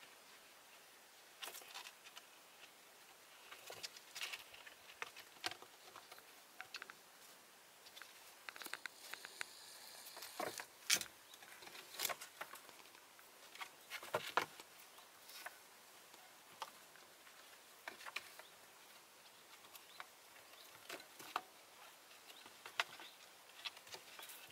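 Faint, irregular taps and scratches of kittens' paws and claws scrabbling on weathered wooden planks as they wrestle.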